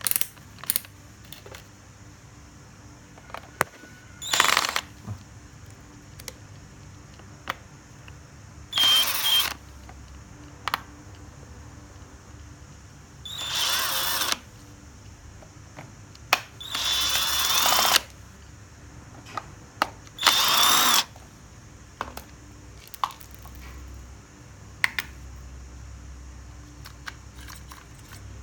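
Cordless drill-driver motor whirring in five short bursts, each about half a second to a second and a half long, with sharp clicks and handling knocks between them. Typical of driving out screws while opening a battery pack's case.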